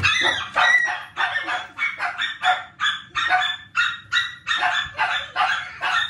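A dog barking over and over in quick, even succession, about two to three barks a second.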